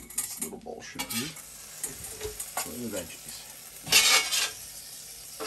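Vegetables sizzling on a hot steel flat-top griddle, a steady hiss, while a metal spatula scrapes across the steel plate in short strokes, loudest about four seconds in as the vegetables are scooped up.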